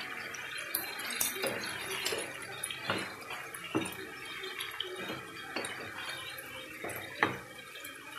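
Chicken pieces, potato chunks and button mushrooms sizzling in a non-stick frying pan. A wooden spatula knocks and scrapes against the pan several times as they are turned, the loudest knock near the end.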